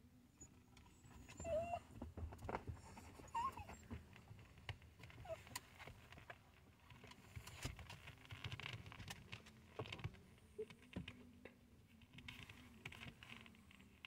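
Small terrier whining softly, a few short rising-and-falling whimpers spread over several seconds, with scattered clicks and rustles over the low rumble of a moving car.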